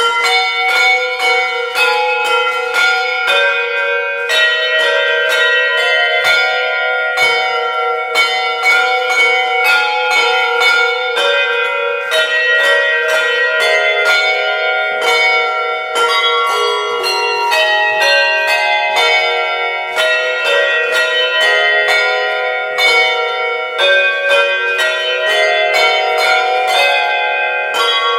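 Handbells rung by a team of ringers playing a traditional carol. Chords of struck bell notes ring on, starting suddenly and keeping an even pace.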